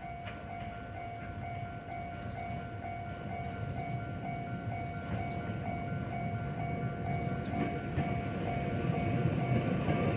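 Japanese level-crossing alarm ringing in a fast, steady repeating pattern. Under it, an approaching electric commuter train, a former Tokyo Metro Hibiya Line car, rumbles and grows louder.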